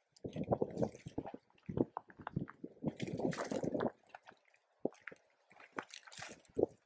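Footsteps crunching and scuffing on dry, stony soil and leaf litter, in irregular bursts with short pauses between them.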